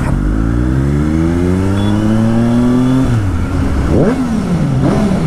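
Motorcycle engine revving, its pitch climbing steadily for about three seconds, then dropping and rising and falling in short blips of the throttle.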